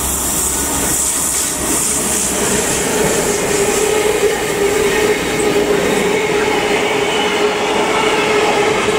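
Loud passing of an intermodal freight train of tank-container, container and trailer wagons, the wheels running steadily on the rails. A steady tone joins the rumble about two and a half seconds in and holds as the wagons roll by.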